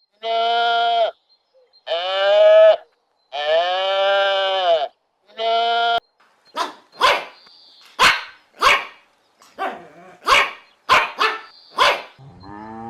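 Four long, steady bleats in the first half. In the second half a dog barks about a dozen short, sharp times.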